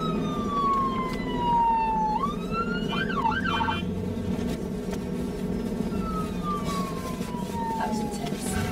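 Police car siren: long, slowly falling wails that snap back up in pitch, broken about three seconds in by a short rapid warble. Under it runs the steady rumble of the moving car.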